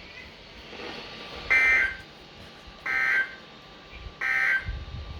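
Emergency Alert System end-of-message data signal: three short bursts of warbling digital tones, about a second and a half apart, marking the end of a severe thunderstorm warning broadcast.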